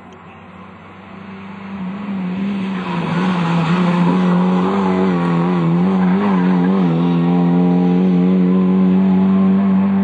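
Rally car engine held at high, nearly steady revs, growing louder over the first two seconds, with the pitch wavering briefly around the middle.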